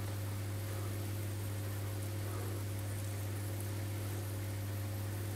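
A steady low hum with a few fainter higher tones over an even hiss, unchanging throughout, with no knocks or scrapes.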